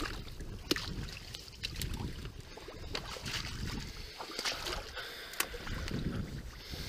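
Someone in waders clambering over fallen logs and dead branches in shallow water: scattered sharp snaps and knocks of wood, rustling and sloshing water, with some low wind rumble on the microphone.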